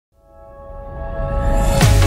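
Intro music fading in from silence: a held chord swells steadily, then a sharp hit with a falling low sweep lands near the end.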